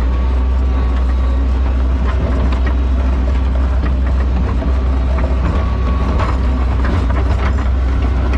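New Holland L150 skid steer's diesel engine running steadily under load while it plows snow, a loud low drone with scattered rattles and knocks from the machine.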